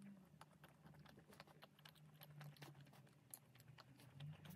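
Faint, close-up chewing of a nut-coated Kinder chocolate bar: many small, irregular crisp crackles as the crunchy coating and wafer break between the teeth.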